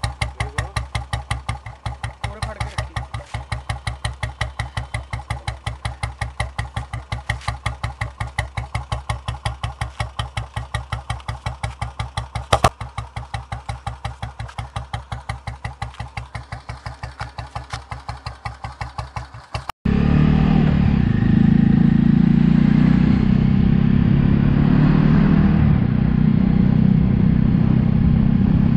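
Small motorcycle engine idling through a homemade add-on silencer, a steel pot strapped over the exhaust outlet, giving an even, fast thudding beat meant to imitate a Royal Enfield Bullet; one sharp clank partway through. About two-thirds of the way in the sound switches abruptly to a louder, steady engine noise as the bike is ridden.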